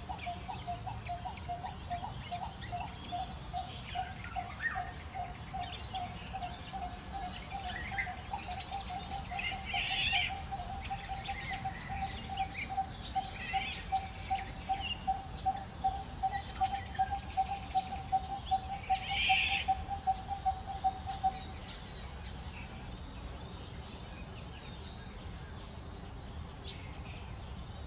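Outdoor ambience of bird calls: a rapid, even series of low pulsing notes, about four or five a second, repeats until it stops about two thirds of the way through, with scattered higher chirps over it.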